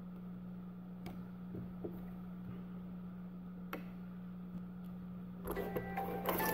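A few faint clicks of fingers pressing on a phone's glass and case over a steady low hum. About five and a half seconds in, the Samsung Galaxy S7 Active starts its boot-up chime as it powers on with the AT&T logo.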